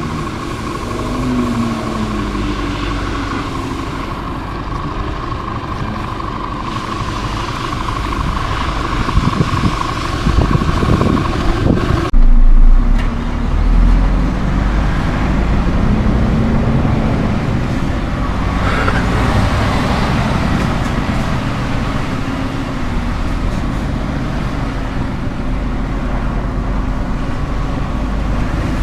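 Scania R410 truck's diesel engine running, its pitch rising and falling with the revs. A steady whine stops about halfway through, and a loud low thump comes just after it.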